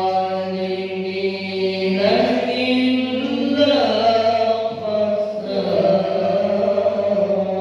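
A young male qari reciting the Quran in a melodic chant, holding long notes with ornamented turns in pitch.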